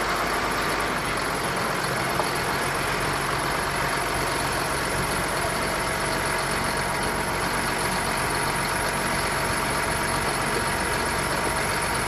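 John Deere 7810 tractor's six-cylinder diesel engine idling steadily.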